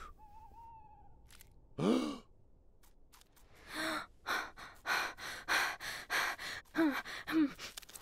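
A cartoon character gasps once with a falling pitch, then pants in quick, breathy breaths, about two to three a second, with two short voiced whimpers near the end.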